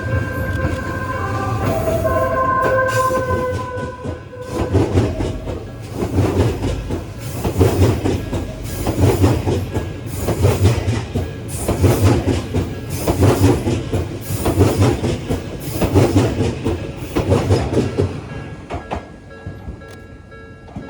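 Odakyu 50000-series VSE Romancecar passing close by. A sequence of held tones changes pitch over the first few seconds, then the wheels clack over rail joints in a regular beat of paired knocks about every second and a half. The clacking dies away near the end.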